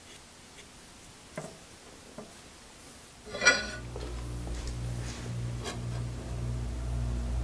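A few faint light ticks, then a single sharp metallic clank with a brief ring about halfway through. Right after it a low, steady electric hum starts and slowly grows louder.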